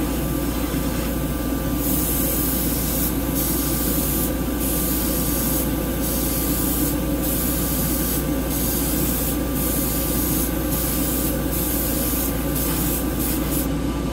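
Airbrush spraying acrylic paint, a hiss that starts about two seconds in and comes in repeated passes of about a second with short breaks between, quicker near the end. Under it runs the steady drone of the paint booth's exhaust fan.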